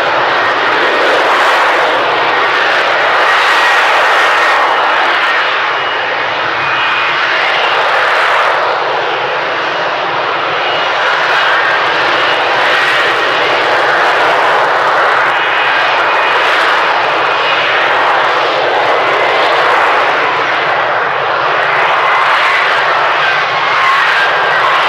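F-35B's Pratt & Whitney F135 jet engine and lift fan running at hover thrust: a loud, steady rushing noise with faint high whining tones over it.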